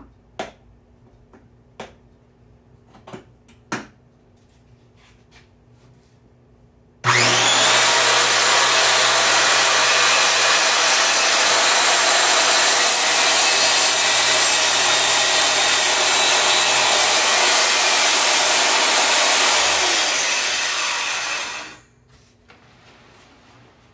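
A few light knocks, then a homemade table saw is switched on about seven seconds in. It runs steadily for about fourteen seconds while cutting wood, then is switched off and winds down quickly.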